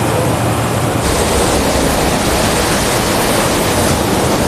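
Loud steady rushing noise of grain-handling machinery running in a silo plant, turning brighter about a second in.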